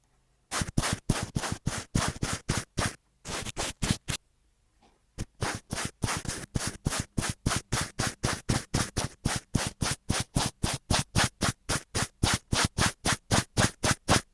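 Rhythmic scratching strokes, about three to four a second, in two runs with a short pause between them.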